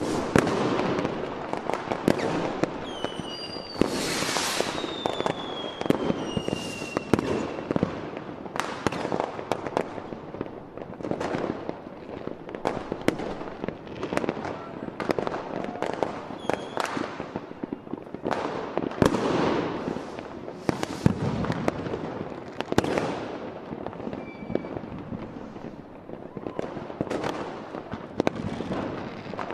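Aerial fireworks display: a steady run of bangs and crackles from bursting shells. A few whistles fall in pitch about three to seven seconds in.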